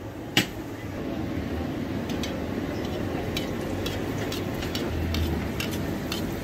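A bhatura deep-frying in hot oil in a steel kadai: a sharp knock just after the start, then steady sizzling and bubbling from about a second in, with scattered faint ticks.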